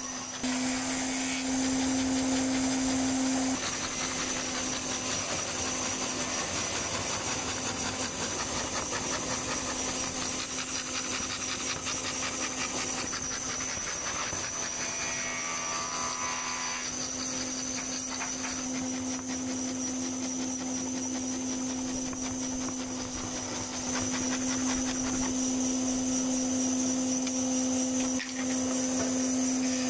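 Band saw running steadily as its narrow blade cuts a wooden board along curved lines, with a constant hum throughout.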